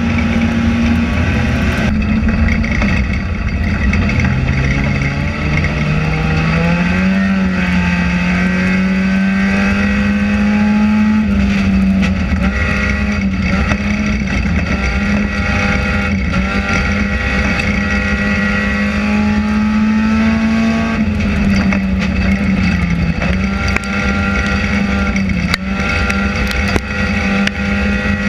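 A stock car's engine running hard, heard from inside its stripped, caged cabin during a dirt-track enduro race, over a heavy rumble. The pitch sits low a few seconds in, then climbs in steps and holds steady for a long stretch, dips again past the twenty-second mark, and comes back up.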